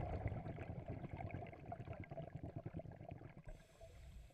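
Scuba diver's exhaled air bubbling from the regulator, heard underwater as a dense crackling burble that fades over a few seconds.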